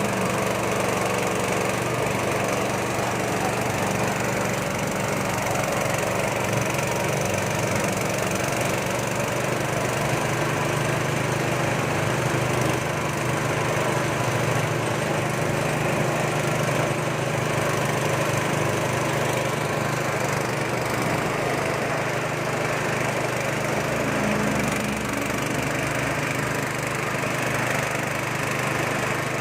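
Small Nishikawa engine running steadily at constant speed, driving a peanut grinding mill as it grinds peanuts.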